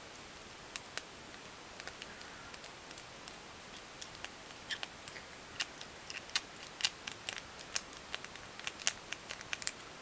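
Lock pick raking and setting the pin tumblers of a Brinks padlock: small sharp metallic clicks, irregular and sparse at first, then coming thick and fast through the second half.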